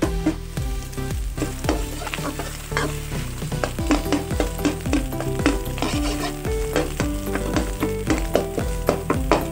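A metal spatula scraping and stirring egg in a hot wok, with many quick clacks and scrapes against the pan over a steady frying sizzle.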